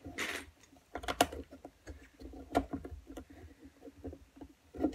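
Plastic LEGO bricks being pressed and snapped onto a model: a string of separate clicks and taps, with a brief rustle at the start.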